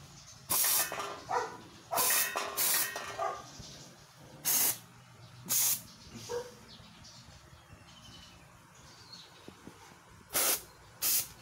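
Kärcher SC4 steam cleaner's hand gun shooting steam in short hissing bursts, about seven of them: several close together in the first six seconds, a pause, then two more near the end.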